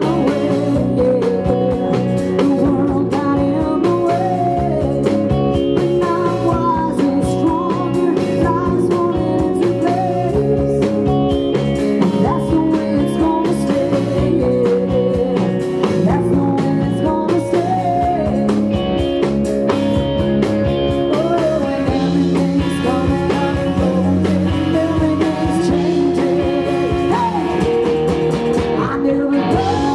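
Live rock band playing: electric guitars and bass over drums, with a tambourine shaken in time.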